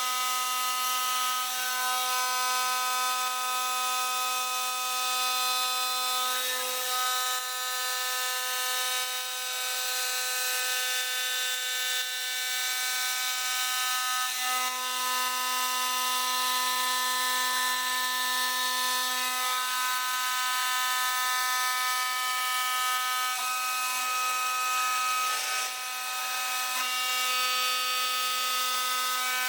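AitalMAC Orbit A8 CNC stone-working machine running: a steady whine of several pitches over a hiss. Its lowest tone drops away and comes back a few times.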